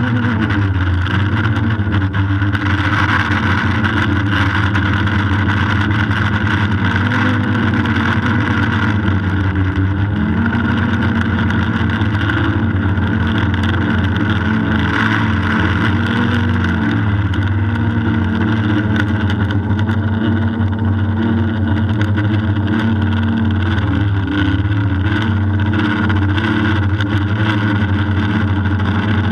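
DJI Phantom quadcopter's electric motors and propellers buzzing steadily, heard from the GoPro Hero3 mounted on the drone itself; the pitch wavers up and down as the drone climbs and manoeuvres.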